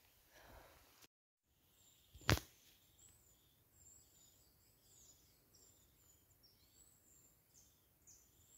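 Faint woodland birdsong: several small birds chirping and twittering, high-pitched, over a quiet background. Near the start there is a brief moment of dead silence, then a single sharp click about two seconds in, the loudest sound.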